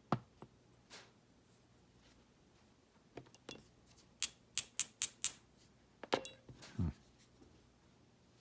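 Small metal lock parts clinking while a dimple lock is being taken apart. Five quick, sharp metallic ticks about a quarter second apart come in the middle, then a few softer clicks and a dull knock.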